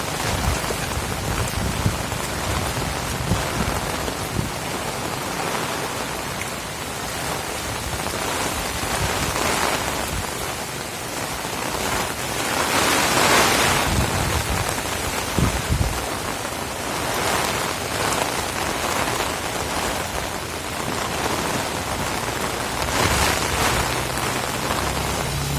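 Heavy rain pouring steadily in strong wind, with low gusty rumbles underneath; the downpour swells louder for a couple of seconds about halfway through and again near the end.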